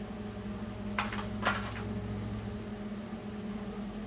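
Two light metallic clinks about half a second apart, from snap ring pliers working a steel snap ring on a locking hub, over a steady low hum.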